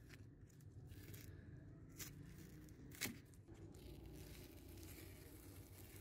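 Blue masking tape and paper wrapping being peeled and torn off a metal wrench, faint crackling and tearing with a few sharp ticks, the loudest about three seconds in.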